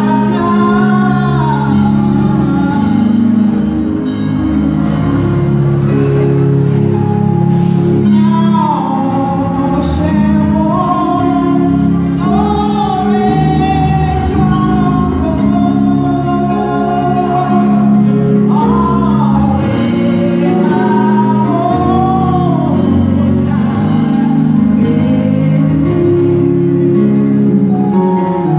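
A woman singing a gospel worship song into a microphone, amplified through a hall's loudspeakers, over steady accompanying chords.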